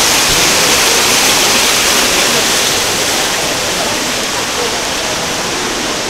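Artificial waterfall of water streaming down a glass wall: a steady, loud rush of falling water, easing off a little in the second half.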